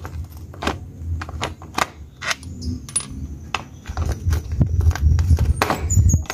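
Irregular sharp clicks and knocks of a Honda XRE 190's front sprocket cover being worked loose by hand, catching against the engine guard, over a low rumble.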